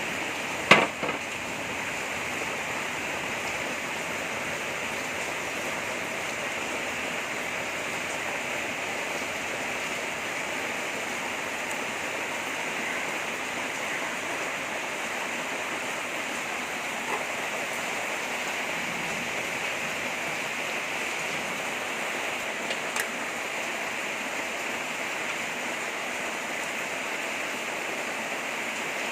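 Heavy rain falling as a steady, even hiss. A single sharp knock sounds about a second in, and a fainter click comes later.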